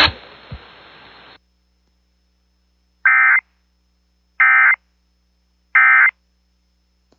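Emergency Alert System End-of-Message signal: three short identical bursts of warbling digital data tone, about 1.4 seconds apart, marking the end of the alert. A faint hiss before them cuts out after about a second and a half.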